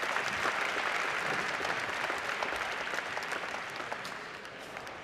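Audience applauding, a dense patter of clapping that slowly dies down over the last second or two.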